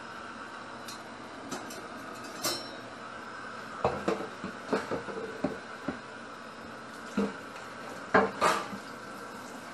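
Wooden cutting board and stainless steel colander knocking and clattering in a stainless steel sink as they are handled. There are two bursts of knocks, the loudest about eight seconds in, over a steady background hiss.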